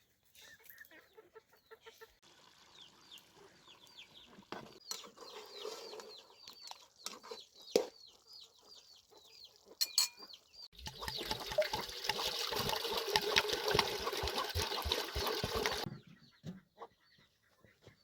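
Birds chirping in short, repeated falling peeps, about three a second. Then, about eleven seconds in, a loud rustling, crackling noise runs for about five seconds and stops abruptly.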